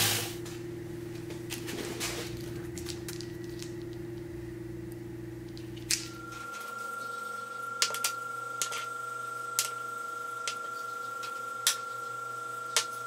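Quiet steady background hum that changes to a higher tone about halfway, with a few sharp light clicks of small steel sockets being handled and set down in the second half.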